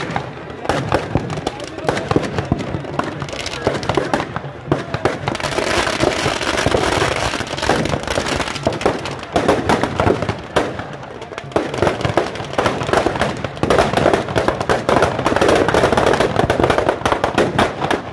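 Firecrackers packed inside a burning Ravana effigy going off in rapid, continuous cracks and bangs, getting denser and louder in the second half.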